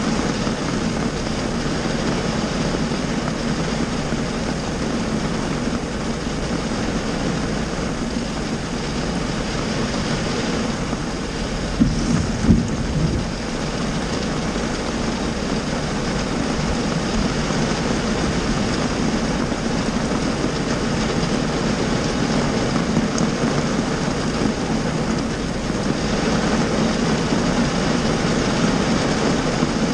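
Heavy rain drumming steadily on a car's roof and windshield, heard from inside the car. There are a few sharp louder knocks about twelve seconds in.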